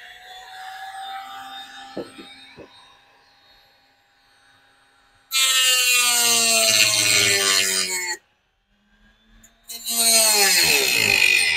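Handheld Dremel-style rotary tool cutting through the tabs of an old mesh grille in two loud bursts, the first about three seconds long from about five seconds in, the second about two seconds long near the end. The pitch drops as the bit bites into the grille, and each burst stops abruptly.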